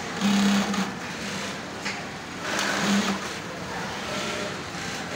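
Typical industrial sewing machine running in two short bursts of stitching, each under a second, over a steady background of workshop machinery.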